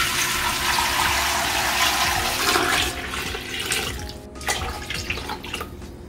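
Running water gushing loudly for about three seconds, then lighter splashing with a few clicks and knocks.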